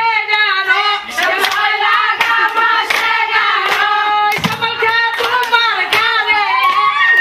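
A group of women singing a Somali buraanbur in unison, holding long high notes, over steady hand clapping at about one or two claps a second.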